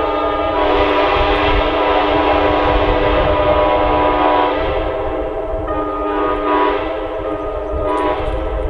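Multi-chime locomotive air horns blowing a long, sustained chord. Some of the upper notes drop away about four and a half seconds in and come back a second or so later.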